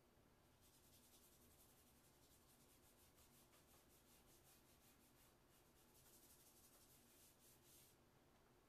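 Faint, quick repeated strokes of white chalk scratching on Bristol paper, several a second. They pause briefly past the middle and stop near the end.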